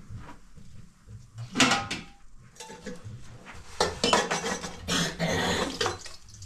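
Metal pots, bowls and utensils clattering as they are handled and set down on the floor. One loud metallic clank with a short ring comes about a second and a half in, and a run of clattering follows in the second half.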